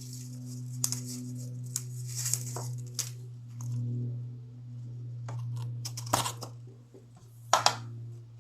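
Paper handling: short crinkling, tearing-like rustles and taps of cardstock daisies being stuck down with glue dots, the loudest pair near the end, over a steady low hum.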